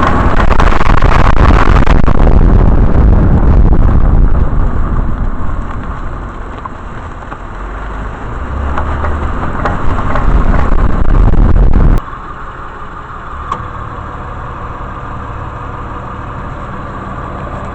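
2008 Honda Odyssey minivan driving under power with a failing CV joint, loud engine and driveline noise for about twelve seconds. The sound then drops abruptly to the steady hum of its V6 idling.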